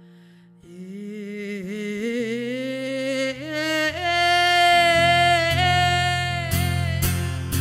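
A woman singing long, drawn-out notes that climb in pitch to a held high note, over a ringing acoustic guitar chord. The acoustic guitar strumming picks up again near the end.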